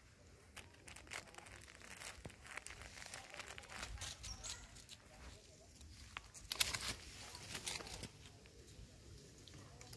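Dry leaf litter and twigs on a forest floor crackling and rustling in irregular crunches, with a louder burst of crackling about two-thirds of the way through.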